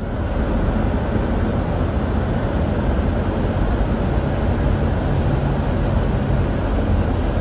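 Steady rushing noise of floodwater flowing through a street, with vehicles running in the water.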